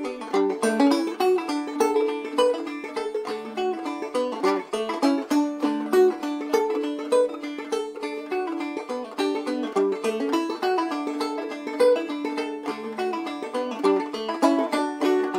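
Banjo playing a quick, steady run of plucked notes in an old-time tune.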